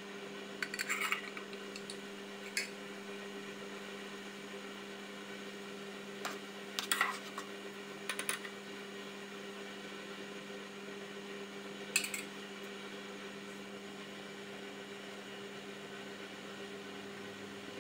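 Water boiling hard in an aluminium pot on a portable gas stove, a steady hum underneath, with a few short knocks and clinks of a wooden spoon against the pot as it stirs.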